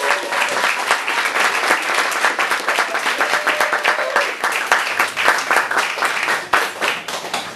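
Audience applause: dense clapping from a crowd that thins out near the end.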